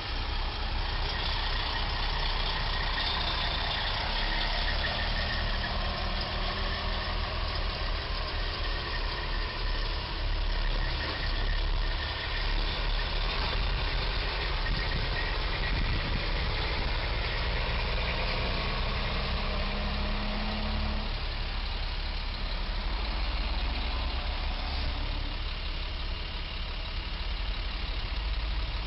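Road traffic: vehicle engines idling and driving past, a steady low rumble with a held engine drone through the middle.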